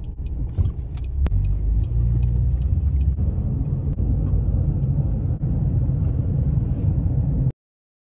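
A car driving, heard from inside the cabin: a steady low road-and-engine rumble, with a few light clicks about a second in. It cuts off suddenly near the end.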